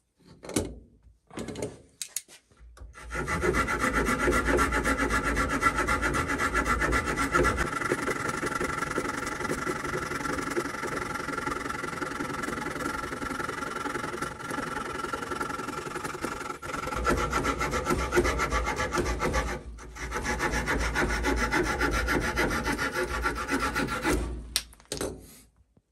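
Leatherman multitool's small folding saw blade cutting a wooden rod clamped in a vise: fast, steady back-and-forth sawing strokes with a short pause about two-thirds of the way through. A few light clicks of handling come before the sawing starts and after it stops.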